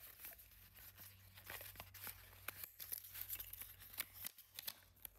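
Faint rustling and scattered small clicks of a white cardboard Chanel No 5 deodorant carton being handled and opened by hand.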